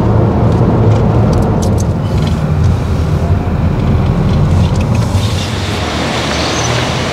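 Car cabin noise while driving: a steady low rumble of engine and tyres on the road. About five seconds in it turns brighter and hissier.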